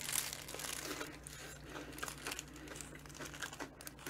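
Paper wrapping around a sandwich crinkling in the hands as it is held and bitten, with soft biting and chewing close to the microphone.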